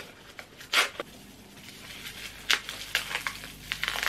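Wrapping paper rustling and crinkling in short, separate scratches as a gift is unwrapped by hand.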